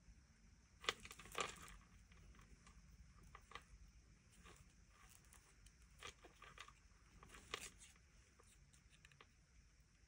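Small, sharp paper snips cutting around a piece of thin cardstock: faint, scattered snips and paper rustles, the loudest two close together about a second in.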